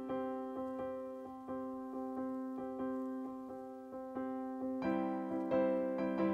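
Background music: a soft piano tune of evenly repeated notes over a held chord, growing fuller with a lower part joining about five seconds in.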